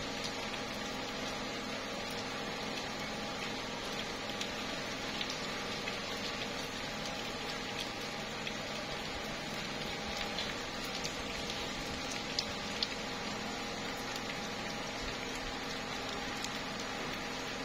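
Slow, light rain falling on tree leaves: a steady hiss with scattered single drops tapping, two of them a little louder about twelve seconds in.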